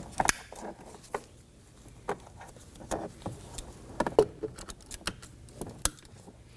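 Scattered light plastic clicks and rattles of wiring-harness connectors being handled and pushed into a car door's power window switch panel.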